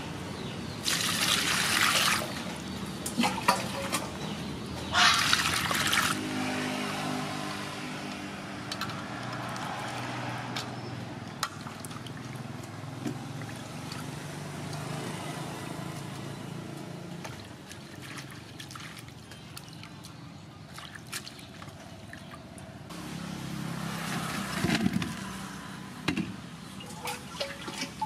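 Water splashing and pouring in an aluminium basin as vegetables are washed by hand, with two louder splashes about one and five seconds in and small splashes between. A steady low hum runs underneath.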